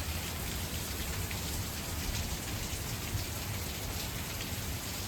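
Steady rain mixed with hail falling on hard surfaces, with scattered light ticks of hailstones.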